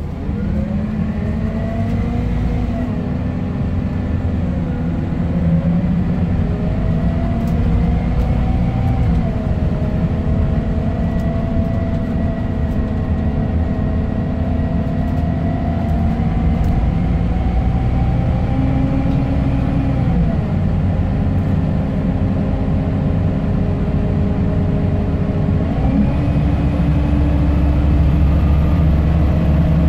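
Scania K270UB bus heard from inside the passenger saloon while under way: the rear-mounted five-cylinder diesel and drivetrain run over road noise. The whining note climbs and drops back several times, and the low rumble grows heavier near the end.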